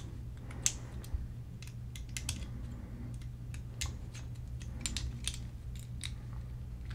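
Scattered light clicks and ticks of small metal charging-handle parts being handled, and an L-shaped key being fitted to loosen the unit's bolts, over a steady low hum.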